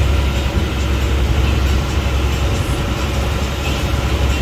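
Fishing boat's engine running steadily, a continuous low drone.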